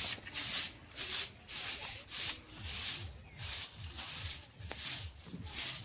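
Rhythmic scrubbing strokes over a surface, about two a second, each a short hissing rub.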